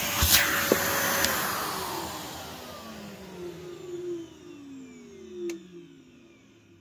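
Numatic NVQ250 vacuum cleaner's motor spinning down: its whine slides steadily down in pitch and the air rush fades away over about six seconds. A click comes just after the start and a sharp tick about five and a half seconds in.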